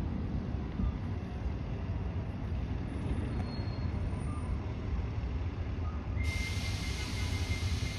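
Steady low rumble of a passenger train approaching in the distance. About six seconds in, a steady hiss with a thin high tone starts suddenly.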